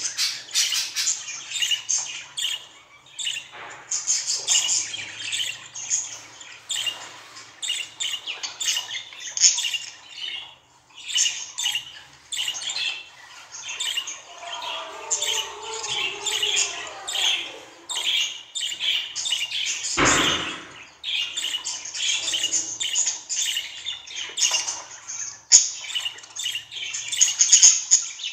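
Budgerigar chattering: a continuous stream of rapid chirps and scratchy squawks, with a softer, lower warble about halfway through.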